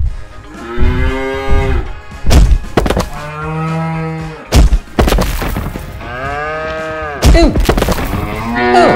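A cow mooing in three long, drawn-out moos, the middle one deep and low, with heavy thuds between them. Short up-and-down cries come in near the end.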